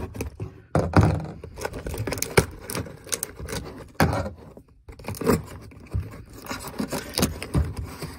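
Scissors slitting packing tape on a cardboard shipping box, with irregular scrapes, rustles and small knocks as the cardboard flaps are handled.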